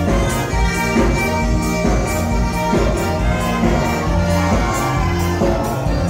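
Instrumental music with a steady beat, about two beats a second.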